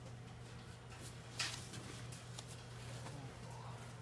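Faint handling noise from a hand brushing over the metal case of an AV receiver and its foam wrapping, with one brief rustle about a second and a half in and a few light ticks, over a low steady hum.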